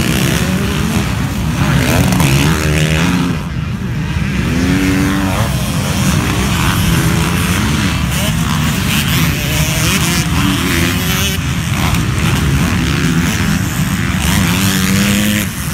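Motocross dirt bike engines racing on a dirt track, revving up and easing off again and again over a steady low rumble.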